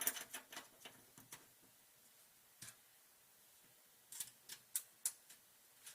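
Light, sharp clicks and ticks in two short runs with a near-quiet stretch between: small metal nuts being screwed back onto the studs of the water level sensor's shield cover inside a commercial dishwasher tank.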